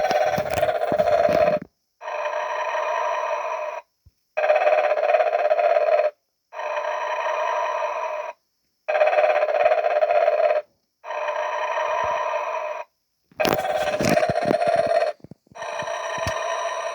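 Snoring Santa novelty toy playing its recorded snore through a small, buzzy speaker. The snores come in a steady cycle of about one every two seconds with short silent gaps, alternating louder and softer breaths.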